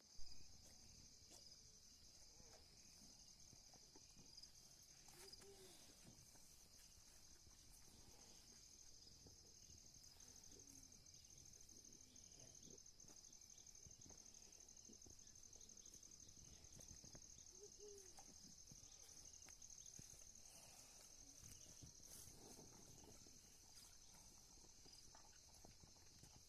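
Faint, steady high-pitched chirring of insects, with a few faint low sounds underneath.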